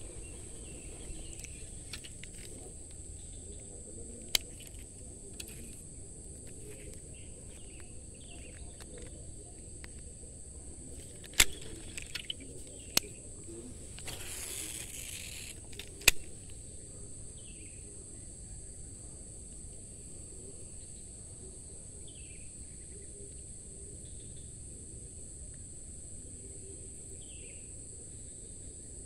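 A steady high insect chorus drones on throughout. A few sharp clicks break through it, the loudest about a third and halfway in, with a brief rustling rush in the middle.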